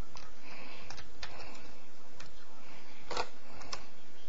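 Irregular small plastic clicks and light rustling as a Logitech G602 wireless mouse is handled, about six clicks with the sharpest one about three seconds in.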